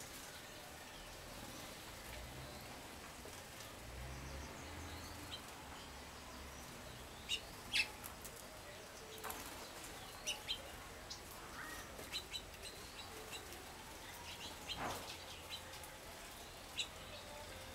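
Wild songbirds giving short, scattered chirps and call notes, the loudest pair a little before halfway through, over a faint low background hum.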